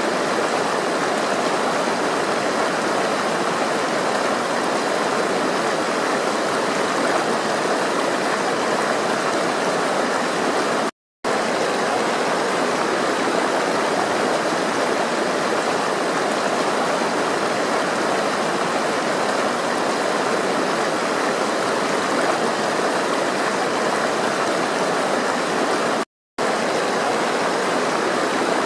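Steady rush of flowing water. It cuts out to silence for a moment twice, about eleven seconds in and again near the end.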